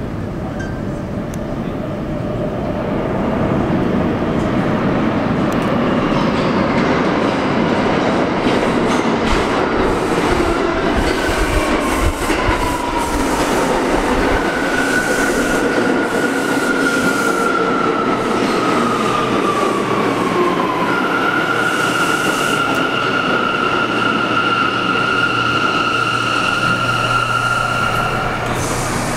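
Bombardier R179 subway train pulling into the station, its wheels clattering on the rails. Its motor whine falls in pitch as the train slows, then settles into a steady high tone.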